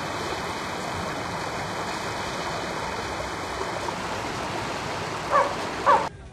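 Steady, even rushing noise, with two short squeaks about half a second apart near the end; it cuts off suddenly.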